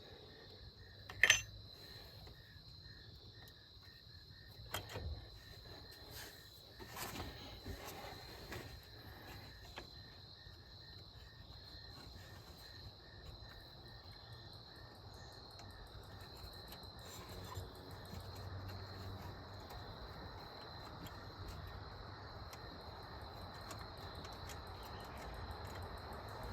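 Faint, scattered metal clicks and taps from a wrench working the throttle cable bracket bolt, the sharpest one about a second in. A steady high-pitched tone runs underneath.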